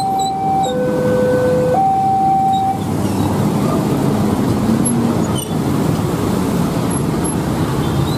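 A two-tone hi-lo alarm alternating between a higher and a lower pitch about once a second, which stops about three seconds in. Under it, and after it, runs the steady noise of idling and passing motorcycles and road traffic.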